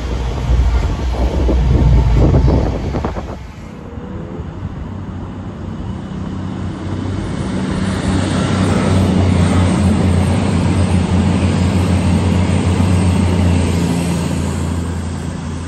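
A seven-car Class 222 Meridian diesel unit rumbles beneath the footbridge, cut off suddenly about four seconds in. Then a CrossCountry Voyager diesel unit runs past with a steady engine drone that swells and then fades toward the end.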